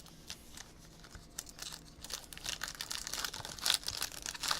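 Crinkling and tearing of a trading-card pack's wrapper as it is handled and opened, quick papery crackles that grow denser and louder about halfway through.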